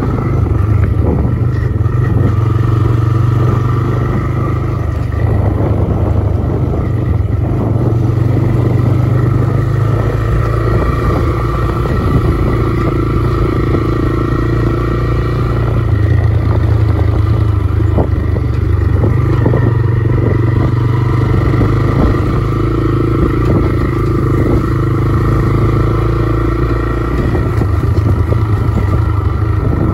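Motorcycle engine running at a fairly steady speed, heard from on the bike, its pitch shifting slightly every few seconds with the throttle. Frequent small knocks and rattles as the bike jolts over a rough dirt track.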